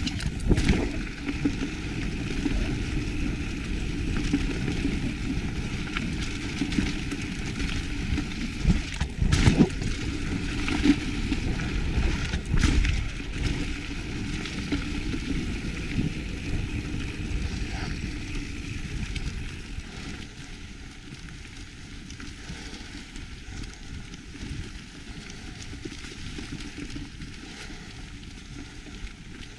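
Mountain bike riding down a dirt singletrack: tyres crunching and rumbling over the trail with the bike rattling, and several sharp knocks as it goes over drop-offs. The noise eases off and gets quieter about two-thirds of the way through.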